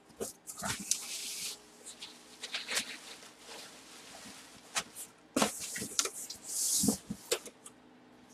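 Cardboard box being handled and slid about: scattered taps and knocks with several brief scraping rustles of cardboard.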